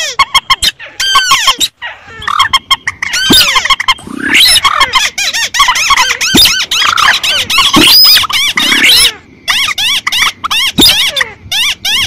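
Layered recordings of swamphen, rail and crake calls (mandar, tikusan and sintar) played as a bird-hunting lure. The quick, squeaky, arched notes overlap densely, with a few abrupt cuts where the loop is edited.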